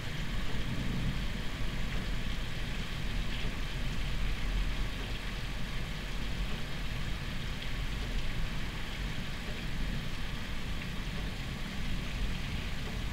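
Steady noise of a night thunderstorm: a low rumble under an even hiss of rain and wind.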